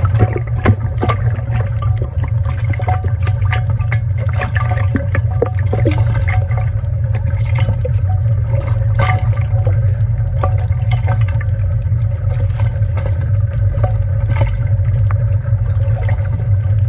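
Water sloshing and slapping against a bathyscope held in the sea, with many irregular small knocks and splashes over a steady low rumble.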